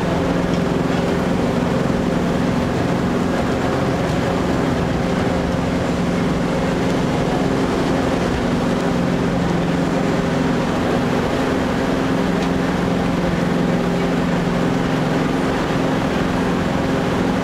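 Jet boat's engine running at a steady pitch and speed as the boat cruises, with the rush of water and wind under it.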